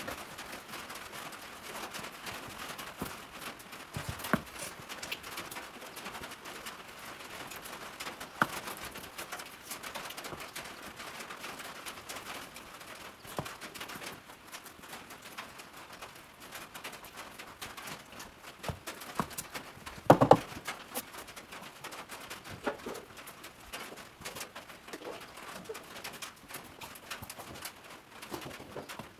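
A horse's hooves knocking and shuffling on a concrete barn floor, with scattered knocks, the loudest about twenty seconds in.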